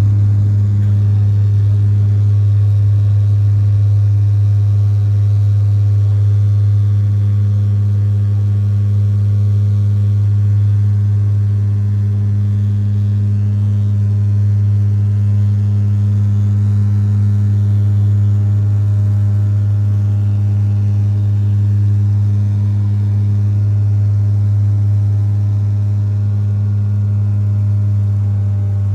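Propeller airliner's steady drone during take-off or climb: a loud, deep hum with a ladder of fainter higher tones above it, holding an even pitch and level.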